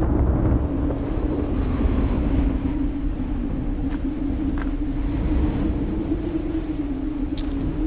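Steady low rumbling ambience with a sustained droning hum, and a few faint crackles in the second half.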